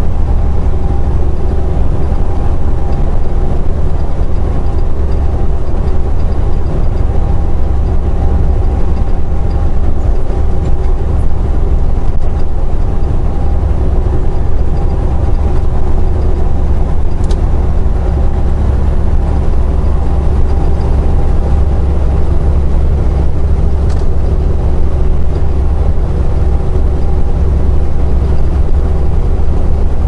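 Semi truck at highway cruising speed: steady low engine drone and road noise as heard from the cab.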